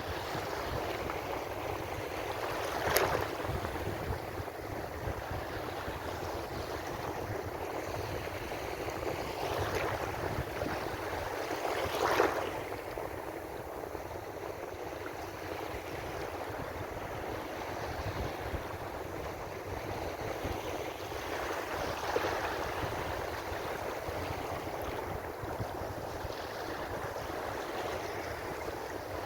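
Ocean surf: a steady wash of water with three waves breaking about nine to ten seconds apart, the one in the middle the loudest.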